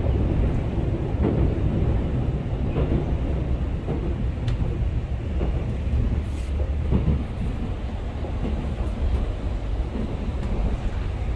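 Passenger train carriage running along the track, heard from inside the cabin: a steady low rumble with occasional faint clicks and knocks.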